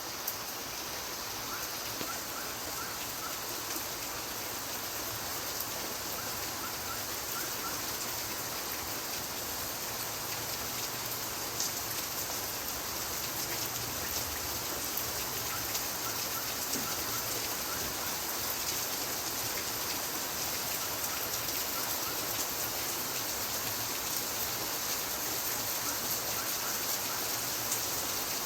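Steady rain falling, an even hiss of many drops with the occasional single louder drop ticking. Faint short chirps come back every few seconds underneath.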